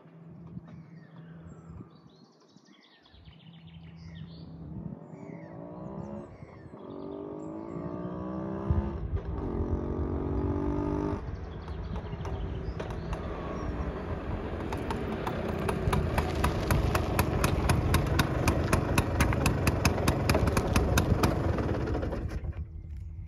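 A 1963 Vespa 125 VNB's single-cylinder two-stroke engine approaches from the distance, faint at first and growing steadily louder, its pitch rising and breaking off a few times as it changes gear. It then runs loud close by with a rapid regular pulsing and cuts off near the end.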